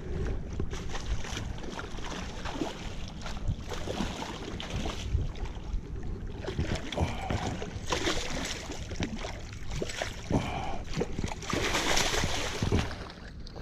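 Hooked salmon thrashing and splashing at the water's surface, in several loud surges of splashing. A landing net sloshes through the water near the end. Wind rumbles on the microphone throughout.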